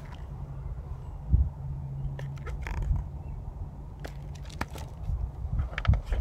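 Handling of a hardcover picture book: scattered light clicks and paper rustles, the page being turned near the end, over a steady low outdoor rumble.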